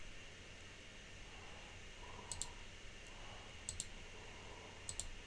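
Computer mouse button clicks in quick pairs, three times, a little over a second apart, over a faint steady hum.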